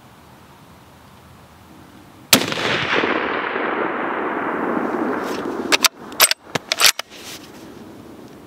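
A single shot from a Barrett MRAD MK22 bolt-action rifle chambered in .300 Norma Magnum, about two seconds in, its report rolling away in a long echo that fades over about three seconds. Then a quick run of sharp clicks as the bolt is worked to chamber the next round.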